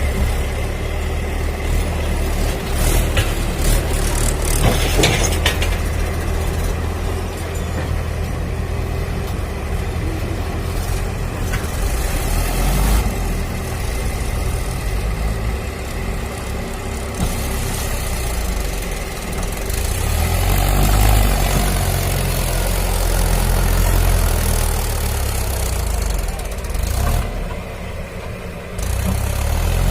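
A steady, low engine rumble, like a heavy vehicle idling.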